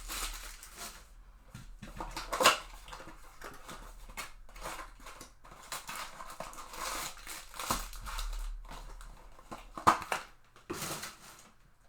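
A cardboard blaster box and its foil trading card pack wrappers being torn open and handled: irregular crinkling and rustling, with a sharp rip about two and a half seconds in and another near ten seconds.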